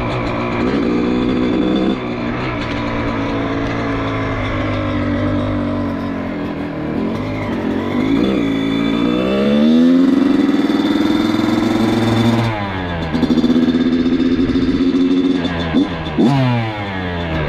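Dirt bike engine running while riding, its pitch rising and falling with the throttle, with two quick revs near the end.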